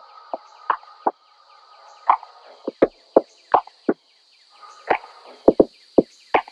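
Irregular sharp knocks and taps, about fifteen in a few seconds, from hands fastening paper sheets to a classroom wall.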